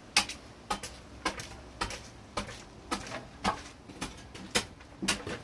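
Sharp, evenly spaced clicks or knocks, about two a second, keeping a steady rhythm.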